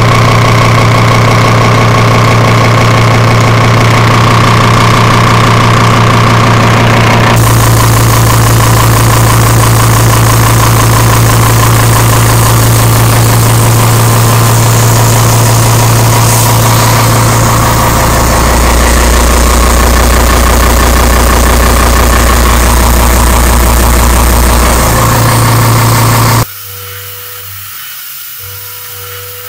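Large milling cutter taking a heavy cut in a thick steel plate: a loud, steady mechanical drone with a deep hum, growing deeper and heavier for several seconds past the middle. About three seconds before the end it gives way to the much quieter sound of a CNC machining centre milling steel.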